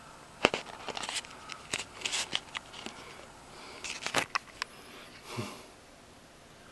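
Rubbery prosthetic wound makeup being peeled off skin close to the microphone: a run of small sticky clicks and crackles, with a short soft rush of noise near the end.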